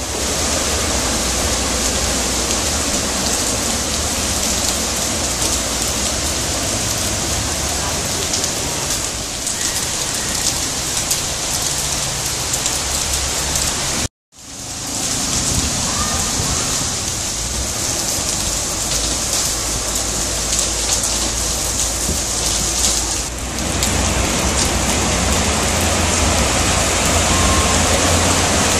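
Heavy rain falling steadily, with a low rumble underneath. The sound breaks off for a moment about halfway through.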